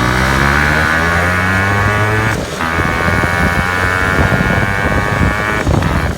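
Yamaha RX 135 two-stroke single-cylinder motorcycle engine with an aftermarket exhaust, running loud on the road. The revs climb for about two seconds, dip briefly, then hold steady and high, and dip again near the end.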